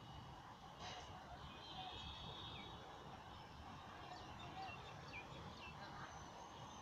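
Faint outdoor background noise: a steady low rumble, with a few short high bird chirps scattered through it.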